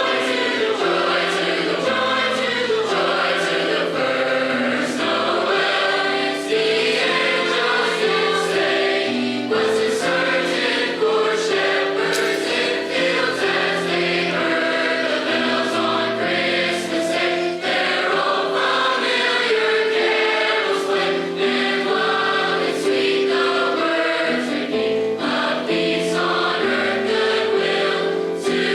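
High school choir singing a Christmas song with accompaniment, over a steady beat of sharp strokes.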